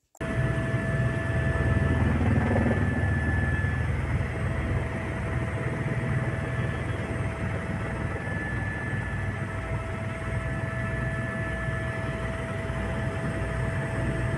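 Helicopter engine and rotor noise heard from inside the cabin: a steady low rumble with a rhythmic rotor beat and a thin, steady whine above it.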